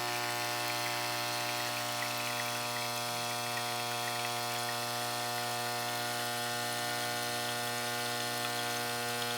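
Breville espresso machine's vibratory pump running a one-cup shot cycle, a steady buzzing hum as it pushes descaling solution through the group head.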